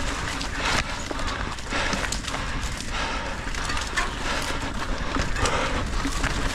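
Mountain bike rolling along an overgrown dirt trail: tyres crunching over the ground and twigs, and brush brushing against bike and rider. Irregular clicks and rattles sit over a continuous rushing noise and a steady low rumble.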